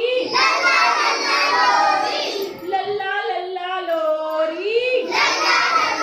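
A class of young children singing a Chhattisgarhi lullaby rhyme together, with a single voice leading a line in the middle before the group comes back in.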